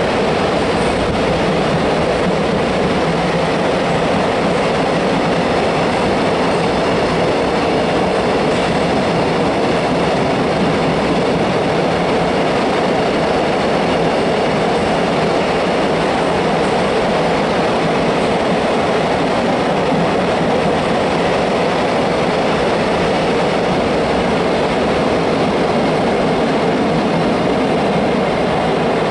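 Freight train's container wagons rolling past at speed on the track beside the platform: a steady, unbroken noise of wheels running on rail.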